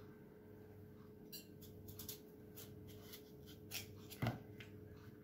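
Faint clicks of a small knife cutting chunks off a peeled potato held in the hand, and pieces dropping into a plastic bowl, with a louder knock near the end. A steady low hum lies beneath.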